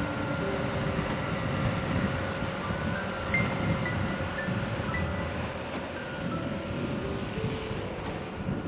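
Background music: a simple melody of short held notes stepping between pitches, over a steady low rumble.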